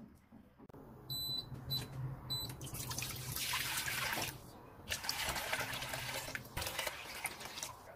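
Cold water pouring in a stream into a large empty stainless steel pot, splashing steadily with a brief lull about halfway.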